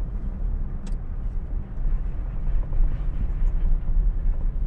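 Car driving along a wet, muddy dirt road, heard inside the cabin: a steady low rumble of tyres on the soupy surface and the engine, with a small click about a second in.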